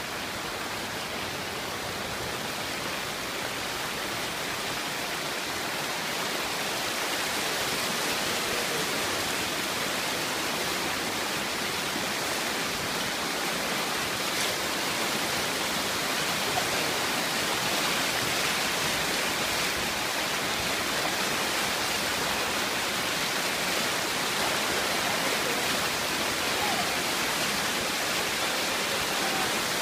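Steady rushing of water, an even hiss that grows a little louder over the first few seconds and then holds.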